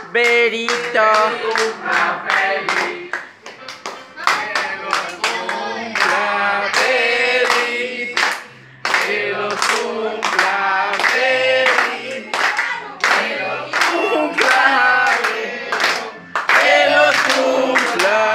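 A group of people singing a birthday song together, clapping in time. The claps keep a steady beat, with a brief pause about eight seconds in.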